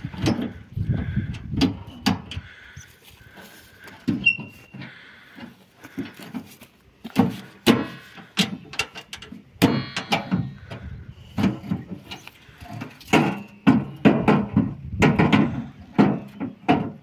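Chestnut logs being dragged and shifted on the sheet-metal bed of a small trailer: irregular knocks and thuds of wood on metal, some ringing, with scraping as pieces slide. It gets busier about halfway through.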